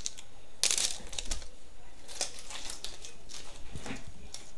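Clicks, scrapes and rustling of cylindrical lithium-ion cells being pushed into a plastic four-cell battery holder, with a louder scrape a little over half a second in.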